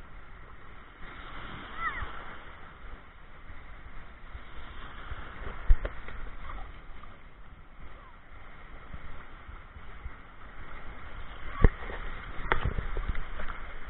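Waves washing in shallow surf, with splashing. A few sharp knocks come about six seconds in and twice near the end.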